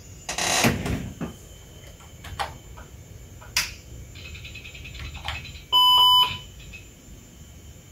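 486 EISA workstation starting up: a loud rushing burst about half a second in, a few sharp clicks, then a single short beep from the PC speaker about six seconds in as the Phoenix BIOS finishes its memory count during POST.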